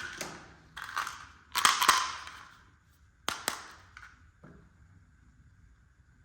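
Plastic toy pieces and their packaging being handled: three rustling bursts, the loudest about two seconds in, then two sharp clicks close together and a couple of fainter taps.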